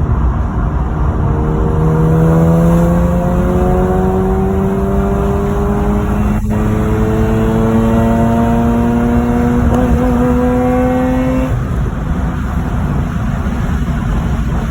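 Mazda RX-8's twin-rotor Renesis rotary engine pulling hard under acceleration, its note rising steadily in pitch, with a momentary break about six and a half seconds in and a brief stutter near ten seconds. The owner reports these as hiccups or misfires at high revs. The engine note drops away near twelve seconds, leaving a broad rumble.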